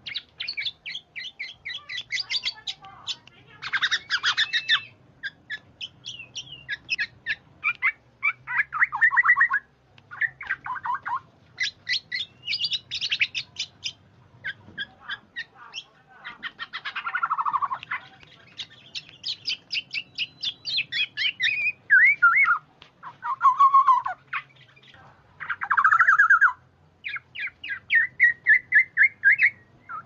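Kepodang (black-naped oriole) calls: repeated bursts of rapid, harsh chattering notes mixed with rasping calls that slide downward in pitch.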